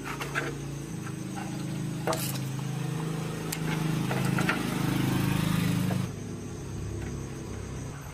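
A machine runs with a steady low hum that grows louder, then drops off suddenly about six seconds in, with a few sharp knocks over it.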